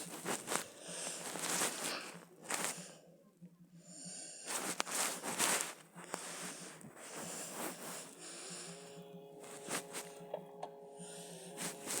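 Washing machine being wrecked: loud, irregular bursts of crashing and rattling with sharp knocks. About two-thirds of the way in, a steady whine of several tones rises briefly and then holds.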